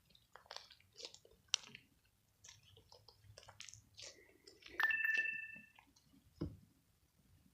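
Homemade slime being squeezed and worked by hand, giving soft sticky clicks and squishes. About five seconds in, a short electronic two-tone alert sounds, followed by a dull thump.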